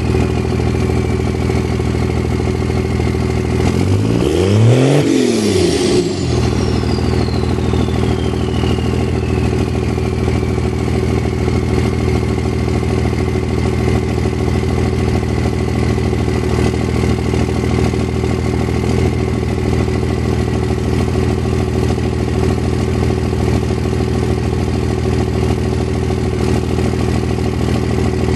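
Steady, loud mechanical hum of a running motor, with a high whine that slowly falls in pitch and levels off. A brief louder swell comes about five seconds in.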